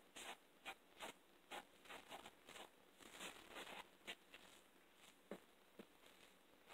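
Spoon stirring and scraping crumbly biscuit dough in a mixing bowl: faint, quick, irregular scrapes that thin out after about four seconds.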